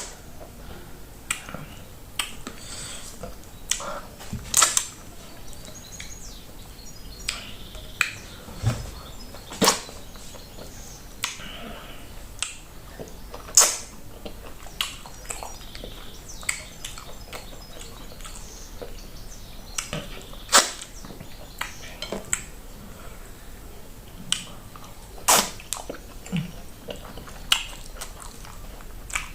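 Close-up eating sounds of a person eating plantain fufu with okra soup: wet mouth smacks and clicks at irregular intervals, a handful of them much louder than the rest.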